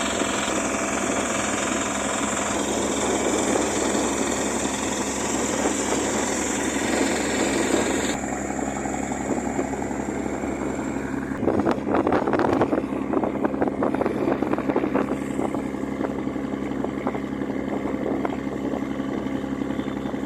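Boat engine running steadily with a constant low hum, under rushing wind and water noise. The high hiss drops away about eight seconds in, and a burst of louder splashing and knocks comes around the middle, followed by lighter irregular knocks.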